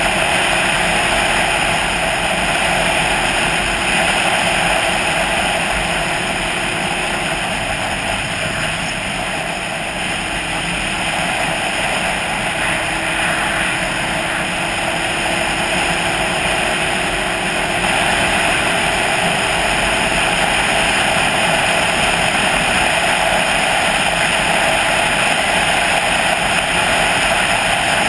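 Steady wind and road noise from a vehicle travelling at road speed, with a faint engine drone underneath. It eases off a little for a few seconds in the middle, then picks up again.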